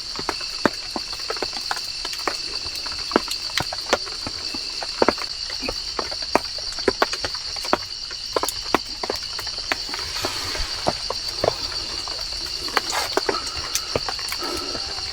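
A steady high-pitched drone of insects, with many irregular sharp ticks and pops scattered over it.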